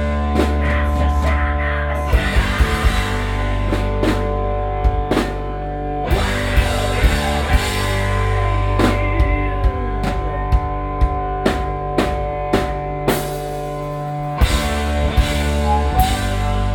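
Hard rock band playing: drum kit hits over sustained electric guitar chords.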